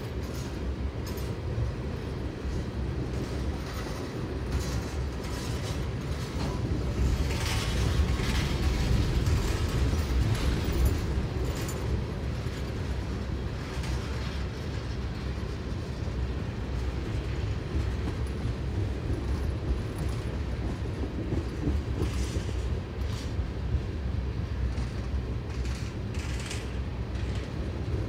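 Steady low rumbling noise with faint rattling clicks over it, swelling louder about seven seconds in and easing back after about twelve seconds.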